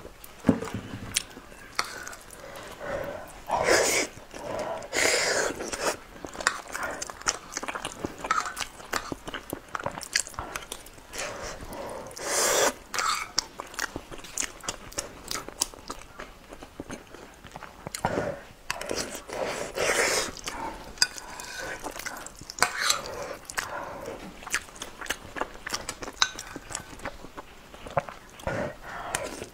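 Close-miked chewing and wet mouth sounds of someone eating a soft, sticky rice dish by the spoonful: dense smacks and clicks, with several louder breathy bursts spread through.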